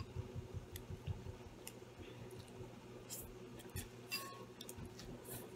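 A person chewing a mouthful of instant noodles with soft, quick mouth sounds. From about three seconds in come a few short slurps as more noodles are sucked up from the chopsticks.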